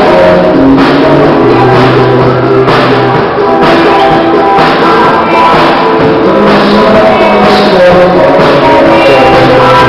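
A rock band playing a song, with a male voice singing over the steady beat.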